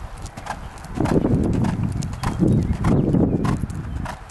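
Hoofbeats of a horse being ridden around an arena, with a low rushing noise from about a second in until nearly the end.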